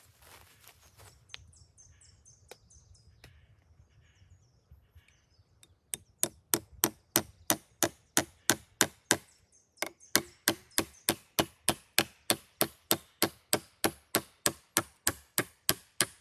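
Rapid, even chopping blows, about three a second, starting about six seconds in and breaking off briefly near the middle. Before them, faint rustling with a few light clicks.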